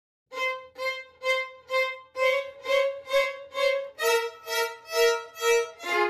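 Violin music from several layered violin parts, starting about a third of a second in with evenly spaced short bowed notes, about two a second, each swelling and fading; the notes step slightly lower in pitch about four seconds in.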